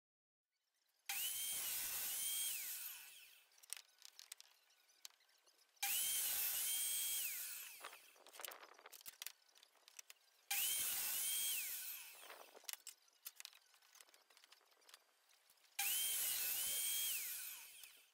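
Table saw cutting a maple and resin board on a sled: four cuts, each starting suddenly and lasting about two seconds before fading, the blade's whine dipping in pitch and recovering during each. Light clicks and knocks of the board being handled fall between the cuts.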